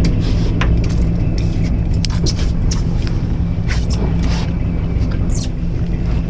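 Fishing boat's engine running steadily, a low drone, with short clicks and hisses scattered over it, most of them in the middle few seconds.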